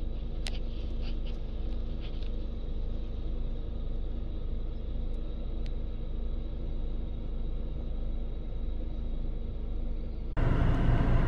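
Car idling, heard inside the cabin as a steady low hum, with a few faint clicks in the first two seconds. Near the end it cuts suddenly to louder steady outdoor noise.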